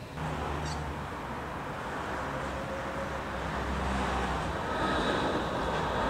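Steady outdoor background noise with a low rumble, like street traffic.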